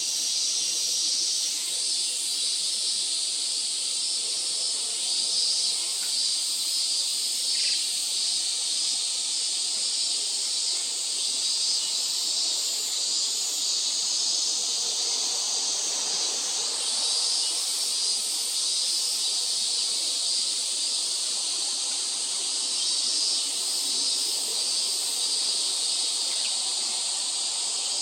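Steady high-pitched outdoor hiss.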